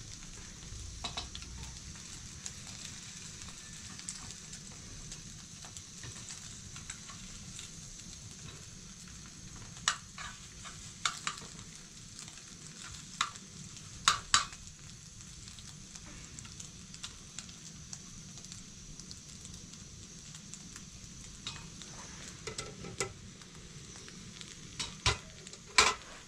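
Food frying in a wide pan on a small gas-bottle burner: a steady sizzling hiss, with a few sharp knocks and scrapes of a utensil against the pan, several around the middle and a couple more near the end.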